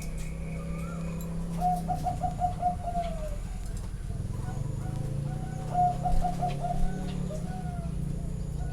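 Zebra doves cooing: two quick runs of staccato cooing notes, one about two seconds in and one about six seconds in, with fainter calls between. A steady low hum runs underneath.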